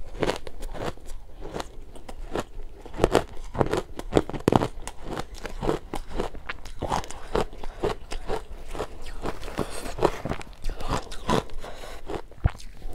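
Close-miked crunching and chewing of mouthfuls of powdery ice coated in matcha powder, a dense, irregular run of crisp crunches.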